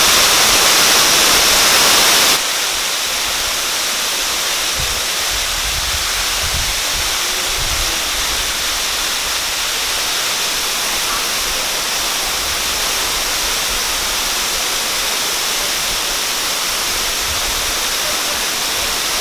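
Water pouring over a dam in a waterfall: a steady, full rushing, a little quieter from about two seconds in.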